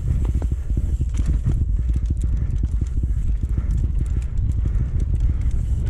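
Mountain bike descending a dirt singletrack: tyres rumbling over the packed dirt while the bike rattles and clatters rapidly over the bumps, with wind buffeting the on-bike camera's microphone.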